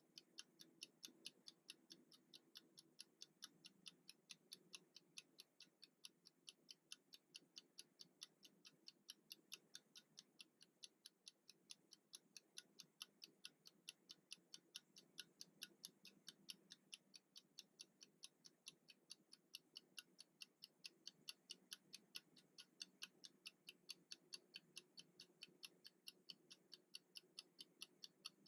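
Mechanical wind-up kitchen timer running down, its clockwork escapement giving quiet, even, fast ticking at about four ticks a second.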